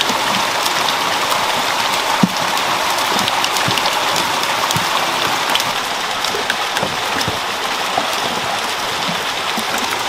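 Water gushing steadily from several pipe outlets into eel holding tanks, splashing on the water surface. Scattered light knocks and splashes sound over it, with one sharper knock about two seconds in.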